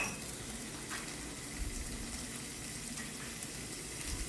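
Butter and garlic sizzling gently in a frying pan on a gas burner, a steady soft hiss, with brown sugar just added.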